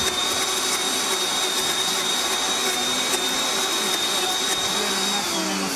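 Countertop blender crushing ice with fruit syrup, its motor running steadily with a high whine over the grinding, then winding down as it is switched off near the end.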